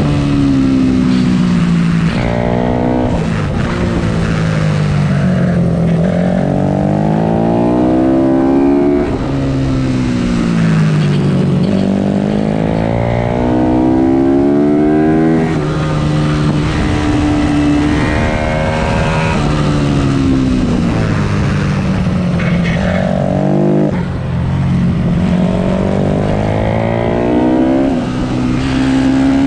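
Pit bike's single-cylinder engine at racing revs. Its pitch climbs with a sudden drop at each upshift, then falls away as it slows for a corner, and this repeats several times through the lap.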